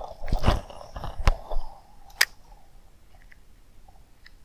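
A few dull knocks and sharp clicks in the first two seconds, then faint scattered ticking.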